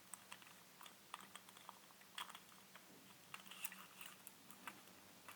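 Faint, irregular small clicks and light scrapes of the plastic lens-barrel parts of a Panasonic LX7 being handled and wiggled as the inner lens assembly is fitted into the outer assembly.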